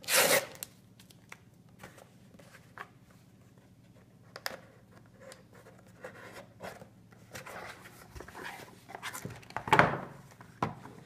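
Cardboard packaging being handled and opened: a clear seal sticker peeled off at the start, then light taps and rustles of cardboard, and a louder scraping rustle about ten seconds in as the box comes apart.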